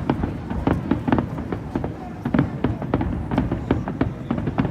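Fireworks shells bursting in a rapid, irregular run of bangs, about four a second, over a continuous low rumble.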